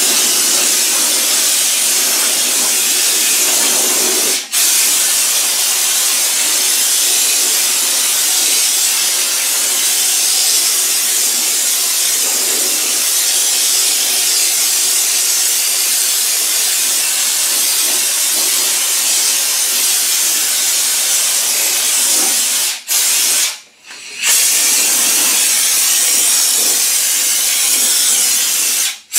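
Compressed-air Schutz (underbody coating) gun spraying rocker panel stone-chip coating from a can: a steady loud hiss of air and spray. The trigger is released briefly about four seconds in, twice more around the 23-second mark, and again at the very end.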